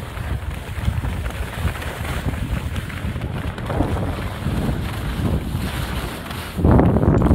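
Wind buffeting the microphone during a downhill ski run, with the rush of skis sliding over packed snow; the noise surges louder near the end.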